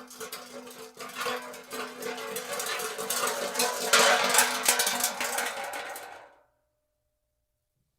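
Metal car hubcap spinning and clattering on concrete, its rim rattling fast with a hollow ringing tone. The clatter grows loudest about four seconds in, then dies away as it settles and stops after about six seconds.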